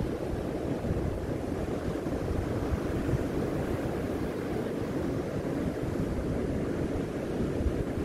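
Ocean surf breaking on a sandy beach, a steady wash of waves, with wind buffeting the microphone in brief low gusts.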